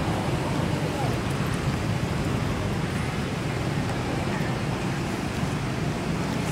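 Steady low rumbling background noise at an even level, with a faint short squeak about a second in.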